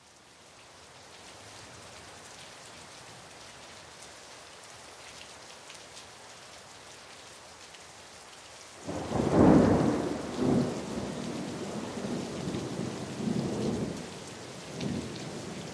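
Steady rain hiss, then about nine seconds in a loud thunderclap that rolls on in several rumbling swells. The storm sounds open a song.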